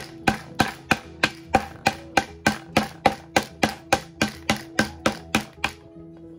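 A hammer driving a nail into wood in a quick, even rhythm of about three blows a second, some eighteen blows, stopping shortly before the end.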